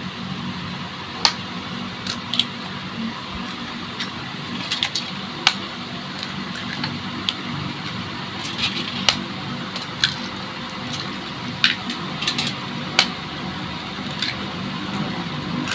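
Eggs being cracked on a stainless steel bowl and dropped in: scattered sharp taps and clicks, a second or two apart, over a steady background hum.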